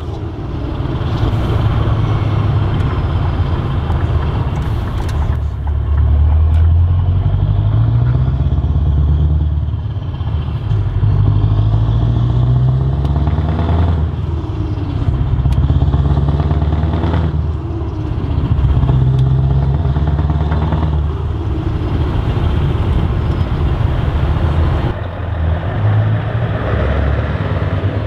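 Scania R580's 16.4-litre V8 diesel on an open-pipe exhaust, heard from inside the cab while driving. The note climbs under acceleration and drops back several times as the truck works through its gears.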